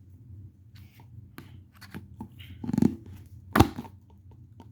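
Hands handling a boxed toy figure and its packaging: scattered clicks and rustles, with one sharp knock about three and a half seconds in.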